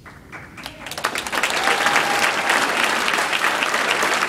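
Audience applauding, the clapping starting about a second in, quickly building up and then holding steady.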